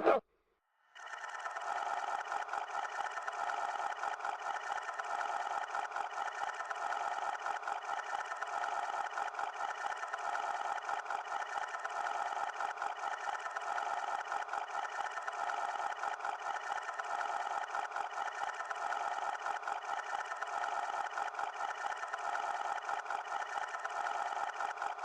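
Alarm buzzer sounding continuously: a steady, buzzy tone with a fast flutter. It starts about a second in and cuts off near the end.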